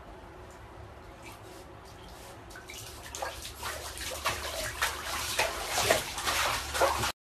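Water splashing and sloshing in a bathtub as a dog paddles through it, faint at first and growing louder from about three seconds in, then cutting off suddenly near the end.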